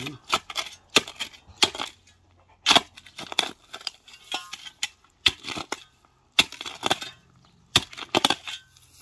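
Steel spade blade jabbing into hard, stony soil: about a dozen irregular scraping, clinking strikes as the blade hits stones, a sign of ground that is full of rock.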